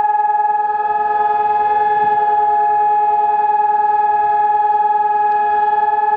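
Civil-defence siren sounding one long, steady, unwavering tone: the Holocaust Remembrance Day memorial siren that calls for a standstill of silence.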